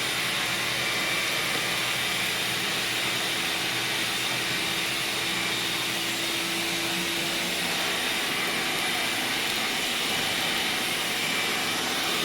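Vacuum cleaner running steadily, a constant rushing hiss with a steady whine in it, as it sucks up dirt and leaves from a garage floor.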